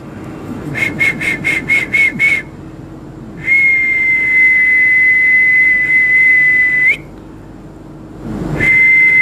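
Whistling on one high pitch: a quick run of about seven short notes, then a long held note that flicks upward as it ends, and a second held note starting near the end.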